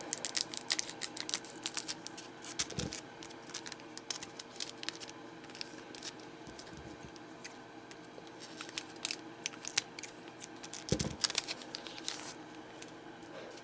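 Scissors snipping across the top of a foil trading-card booster pack, followed by the foil wrapper crinkling and crackling as the cards are worked out of it, with two soft thumps.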